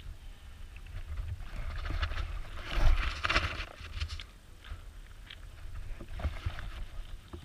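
Sheep nosing at grain right around a ground-level camera: close rustling, scattered soft knocks against the camera and a low rumble, loudest about three seconds in.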